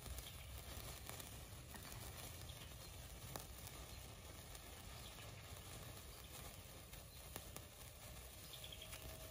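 Sunwing Happy Hour sparkler burning: a faint fizz with scattered small crackles over a low rumble.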